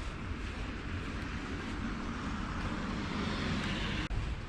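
Wind buffeting the microphone: a steady low rumble with hiss, briefly dropping out about four seconds in.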